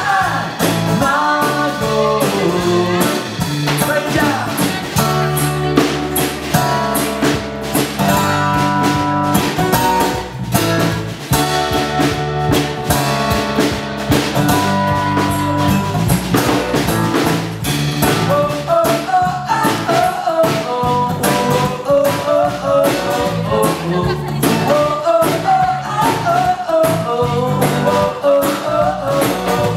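Rock band playing an instrumental break, with a steady drum beat and bass. A guitar lead line comes forward about two-thirds of the way through.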